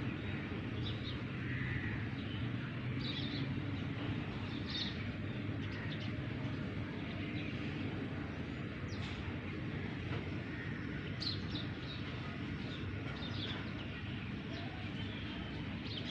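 Scattered short, high bird chirps, every second or so, over a steady low background rumble.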